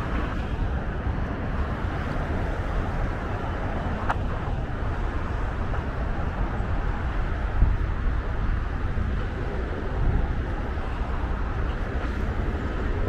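Steady road traffic noise from a busy multi-lane highway, vehicles passing continuously, with a faint tick about four seconds in.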